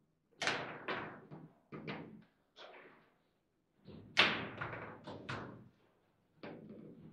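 Table football table in fast play: a string of irregular sharp knocks and thuds as the hard ball is struck by the rod-mounted figures and hits the table's walls, and the rods knock against the table. The loudest knocks come about half a second in and about four seconds in.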